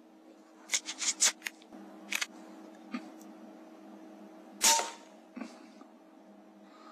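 A quick cluster of sharp mechanical clicks about a second in, then, about two-thirds of the way through, a single sharp crack of an AGT Uragan 2 FAC air rifle shot, the loudest sound here.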